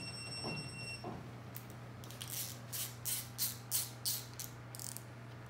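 A high electronic beep lasting about a second, then a socket wrench ratcheting on a billet main-cap side bolt of a Duramax block: a quick run of sharp clicks, about three a second.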